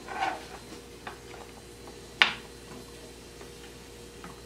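Plastic spoon knocking and scraping against a frying pan as shrimp are stirred, a few scattered clicks with one sharp knock about two seconds in.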